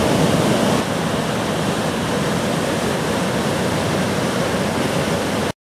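Big hurricane-swell waves breaking, a steady roar of crashing surf and whitewater that dips slightly about a second in and cuts off abruptly near the end.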